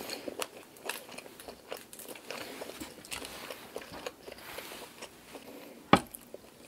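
Cooked black tiger shrimp being peeled by hand: the shells crackle and click in a run of small snaps, with one sharper, louder snap about six seconds in.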